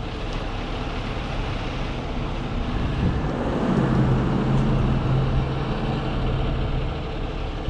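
Heavy rotator tow truck's engine running steadily. About three seconds in it speeds up and holds a higher, louder hum for a few seconds, then eases off near the end, as it drives the boom hydraulics lifting a pickup on rigging.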